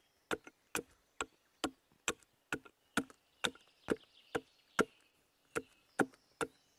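Axe paring down a split sweet chestnut board: a steady run of short chopping strokes, a little over two a second.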